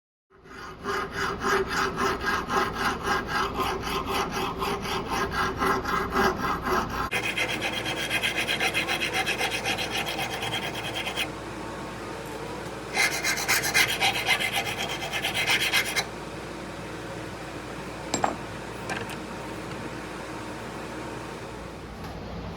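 Steel being worked by hand with a file, in rhythmic back-and-forth strokes of about three a second. About seven seconds in the strokes turn faster and brighter, in two spells, then continue more quietly.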